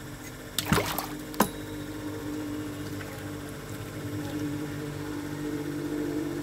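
A few sharp knocks about half a second to a second and a half in, then a steady motor hum.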